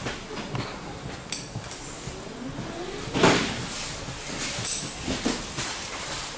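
Inside an ED4M electric train carriage: a steady background noise with scattered clattering knocks, the loudest a sharp clunk about three seconds in.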